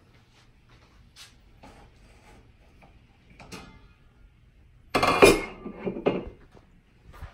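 Dishes and utensils being handled at a kitchen sink: scattered light clinks and knocks, then a loud clatter about five seconds in that lasts over a second.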